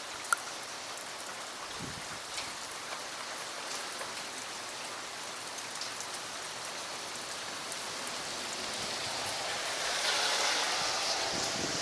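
Steady rain falling during a thunderstorm, with scattered sharp drop ticks; it grows louder about ten seconds in.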